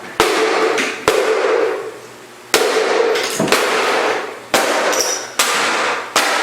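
Six heavy blows smashing a Dirt Devil upright vacuum cleaner's plastic body, spaced about a second apart. Each hit is followed by a clattering rattle that dies away.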